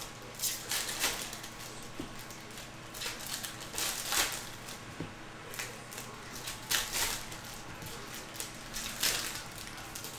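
Foil wrappers of Panini Select football card packs crinkling in repeated short bursts as the packs are handled and opened by hand, with cards sliding against one another.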